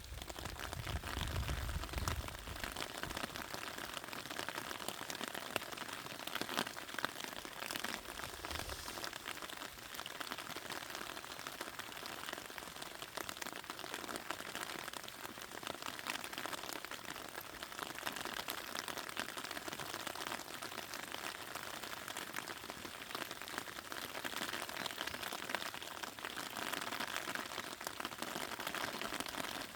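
Rain falling steadily on a raspberry field: an even hiss dotted with many small drop hits. A brief low rumble comes near the start and again about eight seconds in.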